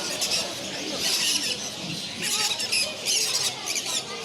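Many caged pet birds chirping and squawking, with a run of short, harsh, high calls one after another.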